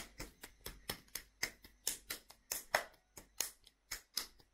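Hands slapping a lump of soft clay back and forth to pat it into a smooth ball: quick, regular pats, about four a second.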